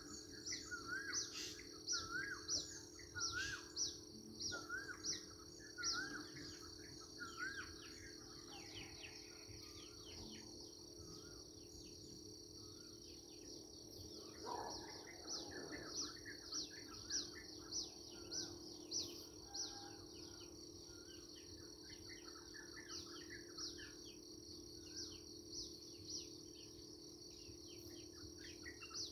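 Songbirds chirping in the countryside, with many short, quick chirps throughout. Over the first eight seconds one bird repeats the same short up-and-down note about every three-quarters of a second. A steady high-pitched hum runs underneath.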